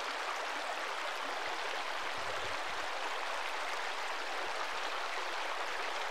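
Steady, even rushing background noise with no other events, like running water or wind.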